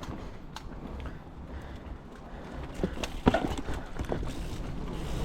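Mountain bike rolling slowly on a dirt trail, with scattered clicks and knocks from the tyres and bike, the loudest cluster about three seconds in.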